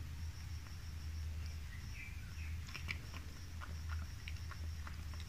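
Domestic cat chewing small boiled fish in a stainless steel bowl of fish broth: soft, irregular wet clicks that come more often in the second half, over a low steady hum.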